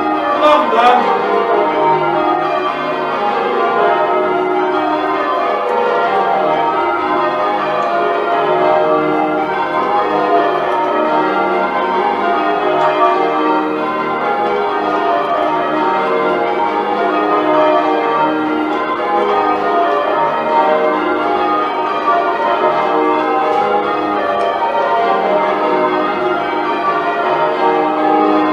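A ring of church bells being change-rung by hand ropes, the bells striking one after another in a steady unbroken sequence, heard from the ringing room below.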